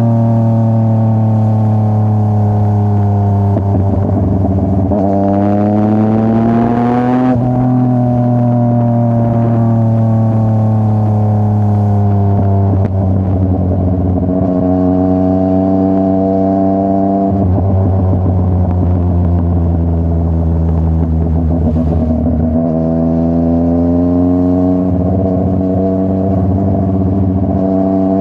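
Yamaha MT-09's CP3 inline three-cylinder engine breathing through a full Akrapovic exhaust, pulling under load. The revs climb about five seconds in and drop sharply at around seven seconds, then ease down slowly, hold fairly steady with a few step changes, and rise again near the end.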